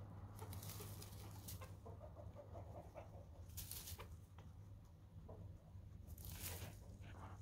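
Faint clucking of chickens, with a run of short clucks about two to three seconds in. A few brief rustles and a steady low hum lie underneath.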